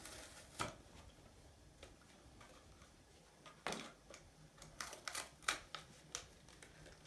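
Plastic blister packaging of a Hot Wheels toy car crackling and clicking as it is pried open by hand: a few scattered sharp clicks, with a quick cluster of them about five seconds in.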